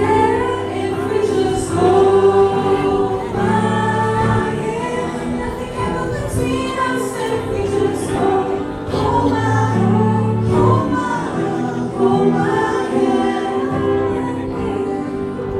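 A group of young voices singing a song together into microphones, backed by a keyboard and electric guitar, with held low notes under the singing.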